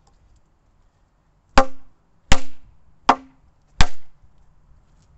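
Four hard blows of a black plastic pipe onto a Casio G-Shock watch strapped to a wooden plank on a tree stump: sharp whacks about three quarters of a second apart, each with a brief ring.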